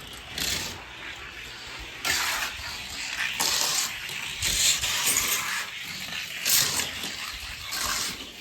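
Die-cast toy car running down a long gravity race track: a steady rushing hiss of small wheels rolling on the track, swelling louder several times along the way.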